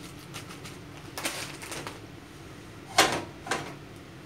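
Foil-lined lachha semai packet rustling in short bursts as dry vermicelli is shaken out into a glass bowl, then two sharp knocks about three seconds in, half a second apart.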